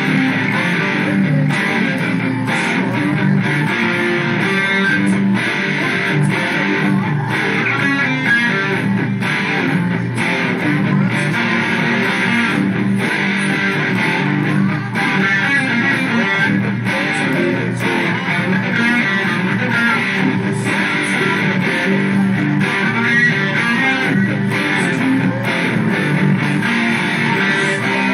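Yamaha electric guitar played without a break, a steady stream of picked single notes and phrases.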